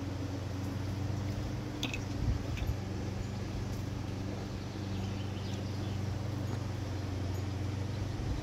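A steady low mechanical hum, with a few brief clicks just under two seconds in and a couple of dull knocks soon after.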